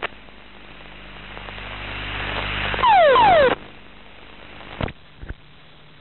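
F-16 cockpit recorder audio after the ejection: a rushing noise builds for about three seconds, then comes a loud burst with two falling tones that cuts off suddenly. After that only a steady recorder hum and static remain, with two short clicks.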